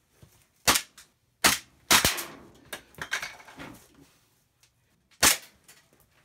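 Gas airsoft pistol, a Beretta 93R replica, firing four sharp single shots: three within the first two seconds, the last two close together, then one more about five seconds in. Between the shots there is lower scuffling and clatter.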